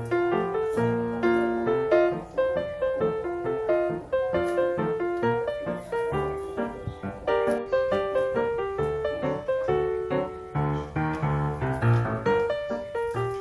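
Background piano music: a melody of quick, separate notes over lower chords.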